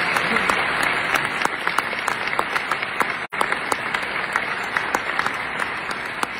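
Banquet audience applauding, with one person's claps sharp and close to the microphone over the crowd. The sound drops out for an instant a little past halfway.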